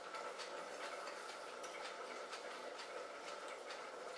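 Faint chewing of a mouthful of raw celery and tomato: small crunching ticks about twice a second, over a low steady hum.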